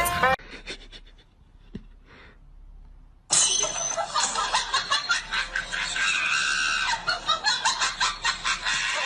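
A short quiet stretch with a few faint clicks, then laughter that starts suddenly about three seconds in and goes on in quick, uneven pulses.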